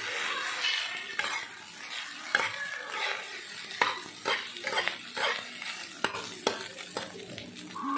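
Fried rice being stirred and turned in a frying pan with a spatula: irregular scrapes and knocks of the spatula against the pan over a soft sizzle.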